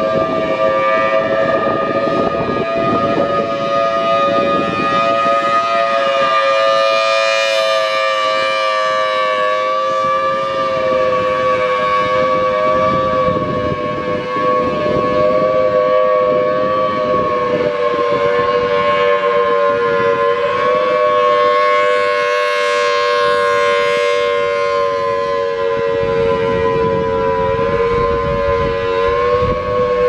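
Federal Signal Thunderbolt rotating siren sounding a steady Alert tone: a chord of two close low notes and a higher one, drifting slightly down in pitch. It swells and fades as the horn sweeps round and is loudest twice, with a tone the recordist calls "sick".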